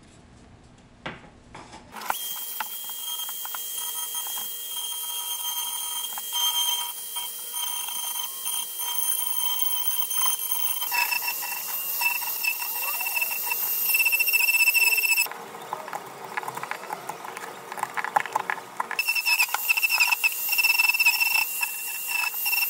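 Harbor Freight mini lathe turning wood with a tool cutting into the spinning piece: a high steady whine with scraping chatter, heard in several separate stretches that change abruptly.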